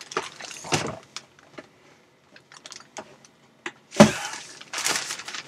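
Groceries being handled and a plastic shopping bag rustling, with scattered light clicks and knocks, then one loud thump about four seconds in as something is set down, followed by rustling of the bag.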